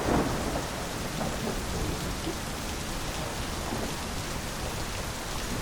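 Heavy rain pouring down steadily, with a low rumbling underneath.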